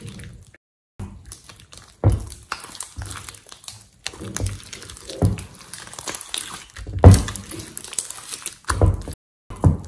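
Hands squeezing, stretching and folding thick slime in a glass bowl: a string of irregular sticky squishing noises, with several louder low thuds where the slime slaps back down, the loudest about seven seconds in. The sound drops out briefly just under a second in and again near the end.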